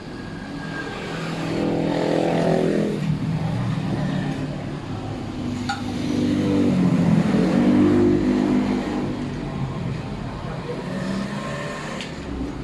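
Motor vehicle engines going past, swelling and fading twice: once about two seconds in and again, longer, from about six to nine seconds in.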